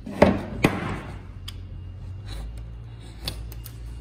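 A PVC window-profile frame knocking against a wooden workbench as it is handled and set down: two sharp knocks close together near the start, then lighter knocks a little over three seconds in. A low rumble starts about halfway through.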